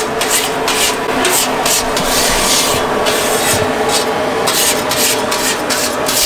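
Metal scraper rasping across a large flat griddle (tawa) as oil is spread over its surface, in quick repeated scraping strokes with one longer stroke a little over two seconds in.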